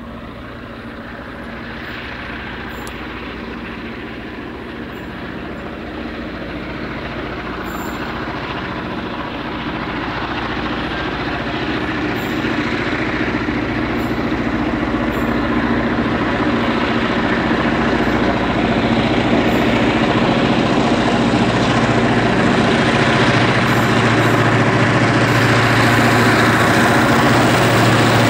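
Vintage Clyde-built EMD diesel-electric locomotives, S class S317 leading, running under load with a heavy coal train, their two-stroke diesel engines growing steadily louder as the train approaches.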